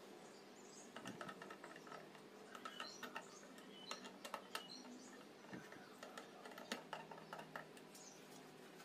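Scattered light clicks and small metallic taps as a screwdriver and a pillow block bearing are handled on the steel frame of a car scissor jack, over a faint steady hum.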